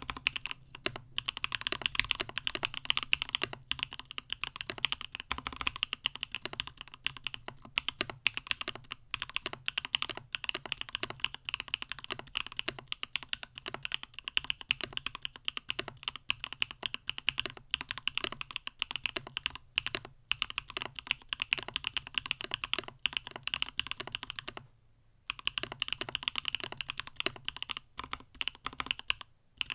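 Continuous fast typing on a CannonKeys StackedTKL, a stacked-acrylic mechanical keyboard fitted with Gateron Smoothie switches: a dense run of keystroke clacks, broken by one short pause about 25 seconds in.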